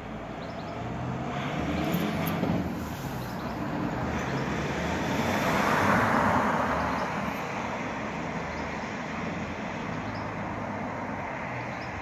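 A car driving past on the street: tyre and engine noise swells to a peak about six seconds in and then fades, over a steady low traffic hum, with a smaller swell about two seconds in.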